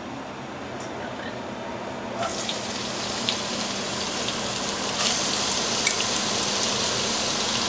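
Strips of vegetable marrow sizzling in hot olive oil with cumin seed in a pan. The hiss starts about two seconds in as the marrow goes in, grows louder about five seconds in, and has scattered small crackles.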